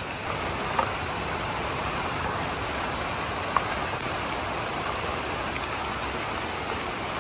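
Steady heavy rain falling, with a couple of brief sharp taps standing out, the loudest about three and a half seconds in.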